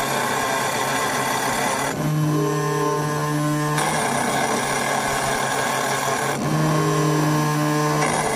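CNC stone engraving machine's spindle cutting into black granite: a steady mechanical whine over a grinding hiss, its tone shifting every couple of seconds as the cutting head moves along the lettering.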